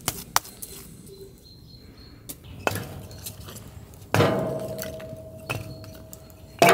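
A piece of firewood knocks against the steel fire barrel and griddle plate as it is fed into the fire opening. The steel rings with a steady tone that fades over about two seconds, and another loud metallic knock comes near the end. A few light clicks sound in the first half-second.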